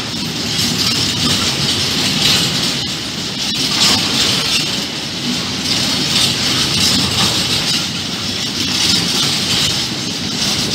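Empty intermodal container flat wagons of a freight train rolling past at speed, a steady rumbling rattle of wheels on rail with a hissing edge and occasional clacks.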